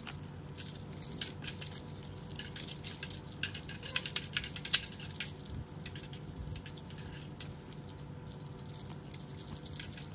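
A dangling feather cat toy being batted and pulled by cats, making irregular light jingling clicks, clustered at times, over a faint steady hum.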